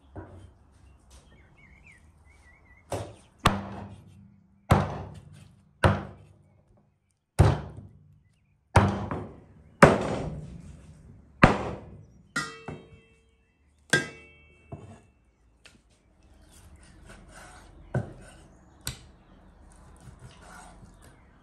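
Meat cleaver chopping bone-in meat on a thick wooden chopping block: about a dozen sharp, heavy blows, mostly about a second apart, with a pause of a few seconds before the last two.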